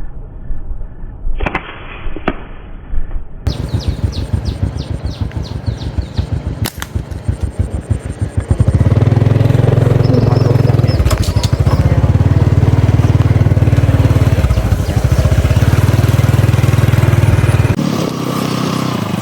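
Small motorcycle engine running with a rapid firing rhythm. About nine seconds in it rises to a loud, steady drone, as when the bike is ridden along at speed.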